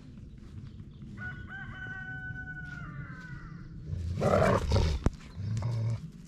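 A rooster crowing once, a call of about two seconds that is held and then trails off. Then, about four seconds in, a louder rough burst of noise and a sharp click.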